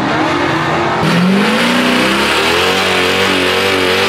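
A car engine revving hard, climbing sharply about a second in and then held at high revs with a wavering pitch, over a loud hiss.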